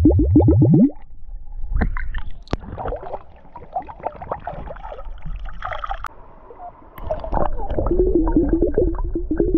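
Small glass bottle filling underwater, air glugging out of its neck in a rapid run of bubbles that rises in pitch and stops about a second in. Irregular splashing and pouring follow as the bottle is lifted out and emptied, and about two seconds before the end the rapid glugging starts again as it is refilled.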